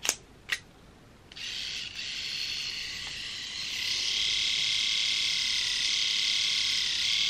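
Battery-powered mini electric eyebrow trimmer running with a steady, high-pitched buzz as it cuts eyebrow hairs. It starts about a second in after a couple of short clicks, and gets louder a few seconds later.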